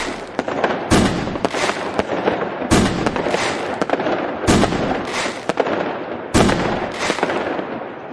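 Fireworks going off: a sharp bang about every two seconds, each followed by dense crackling, with smaller pops in between.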